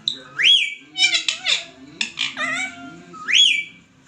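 Indian ringneck parakeet whistling and chattering: two rising whistles that level off, near the start and about three seconds in, with shrill, quickly falling chatter between them.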